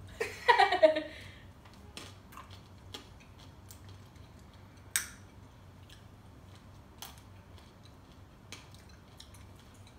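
In-shell sunflower seeds being cracked between the teeth and chewed: scattered sharp cracks about a second apart, with one louder crack about five seconds in.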